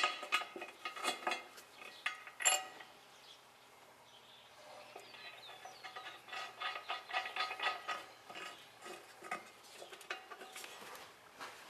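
Light metal clinks and rattles of steel nuts and washers being handled and run onto a tractor wheel eccentric's bolts by hand. A sharper clink comes about two and a half seconds in, then a short lull, then a run of small irregular clinks.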